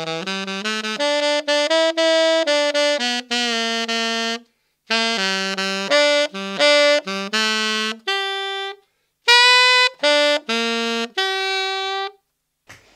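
Tenor saxophone playing a run of short blues-scale notes in three phrases, ending on a couple of longer held notes. It is a deliberate demonstration of a directionless, noodley blues-scale solo with no licks or phrasing, the kind the player calls all a bit rubbish.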